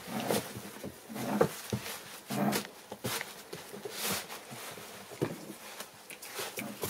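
A litter of young American Bully puppies making short pitched cries, roughly one a second, with sharp scratches and knocks among them.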